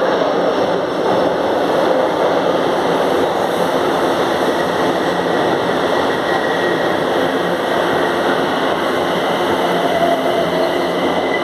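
São Paulo Metro train pulling into an underground station platform: a loud, steady rumble of wheels and running gear on the track. A faint high whine comes in about halfway through as the cars pass.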